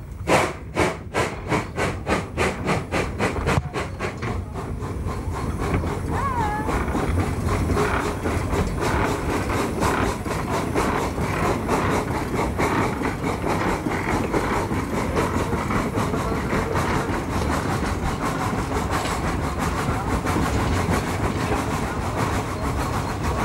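Rack-railway steam locomotive pulling its train away uphill: loud exhaust chuffs about three a second at first, quickening after a few seconds into a fast continuous beat.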